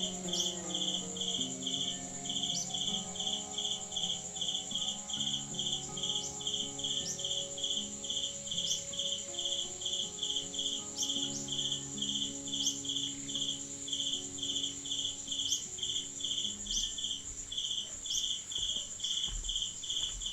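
Insects chirping: a regular pulsed high chirp, about two to three times a second, over a steady high buzz, with short falling chirps every couple of seconds and faint low tones underneath.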